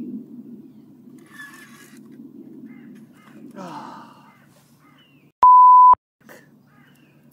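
A single loud, steady censor bleep lasting about half a second, near the end, with the background sound cut out around it. Before it, only faint outdoor background noise.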